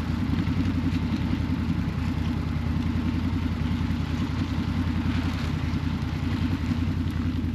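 A vehicle engine idling steadily: an even, low drone.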